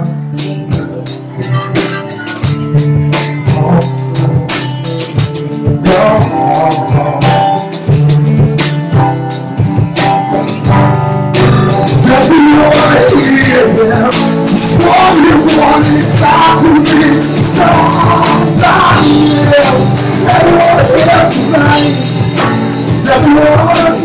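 Live rock band playing: drum kit keeping a steady beat under guitars and bass, with a man singing. About halfway through the band fills out and plays fuller and denser.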